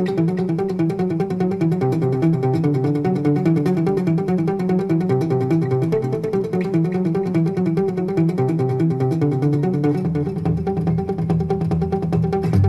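Instrumental background music with quick, repeating plucked-guitar notes. A deeper bass part comes in about ten seconds in.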